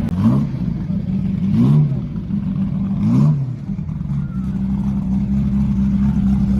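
A car engine idling, blipped three times about a second and a half apart: each rev rises and drops straight back to a steady idle.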